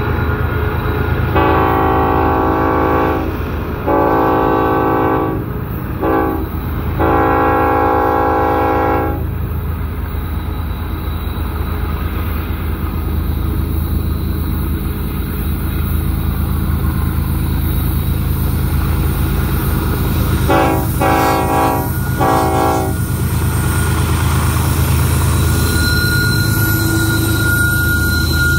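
BNSF freight train's diesel locomotives running with a steady low drone. The lead locomotive's multi-note horn sounds long, long, short, long, the grade-crossing signal, and then, about twenty seconds in, three quick blasts. The engines come close as the lead unit passes near the end.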